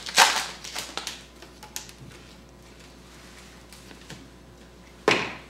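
Foil trading-card pack torn open and crinkled, a sharp rustle in the first half-second, then a few light clicks and rustles as the cards are handled before it goes quiet.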